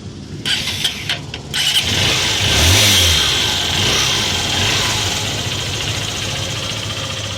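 Honda Shine motorcycle's single-cylinder engine started on its just-repaired electric self-starter: a few clicks, then the engine catches about a second and a half in, revs up and settles back to a steady run, showing the starter now works.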